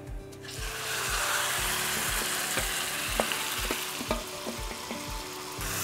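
Marinated chicken going into hot fat and fried onions in a pot, sizzling hard on high heat. A few knocks of the stirring spoon against the pot come through the sizzle.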